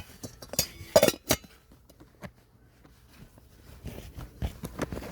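Small cooking-kit containers being handled and packed: a string of clinks and knocks, the sharpest a pair about a second in, followed by quieter rustling and handling.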